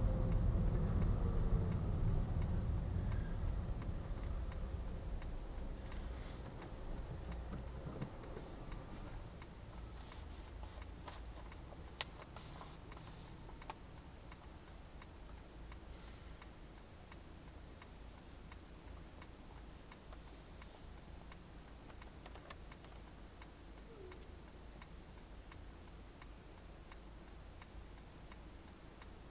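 Car's right turn indicator ticking steadily while the car is held at the traffic lights. Under it the car's low running and road noise fades away over the first several seconds as the car comes to a stop.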